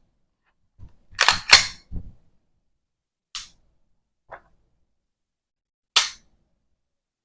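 Glock 19X pistol being dry-fired with its stock trigger: a pair of loud metallic clacks about a second in, like the slide being racked back and snapping forward, then a couple of smaller clicks, and a single sharp trigger-break click near the end.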